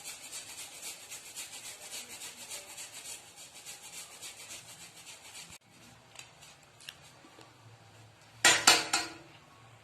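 Fresh ginger being grated on a hand grater: quick, even rasping strokes that stop abruptly about five and a half seconds in. Near the end, a short loud clatter.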